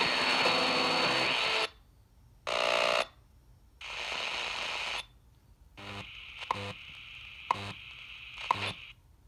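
Sony XR-F5100 car stereo's shortwave tuner on the SW1 band, playing blocks of static and snatches of station audio separated by short muted gaps as it tunes. Near the end, three short beeps about a second apart sound over the hiss.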